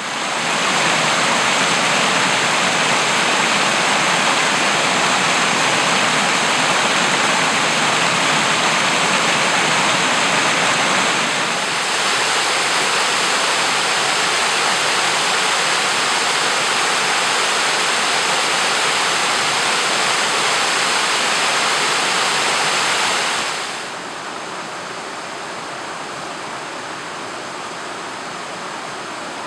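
Hurricane River rushing over rocks: a steady, loud wash of running water that drops slightly about eleven seconds in and falls noticeably quieter about twenty-four seconds in.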